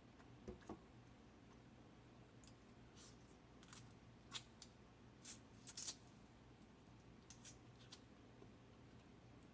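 Faint room tone broken by about ten short, sharp cracks and clicks of crab shell being broken and picked apart, most of them bunched in the middle, with two soft knocks near the start.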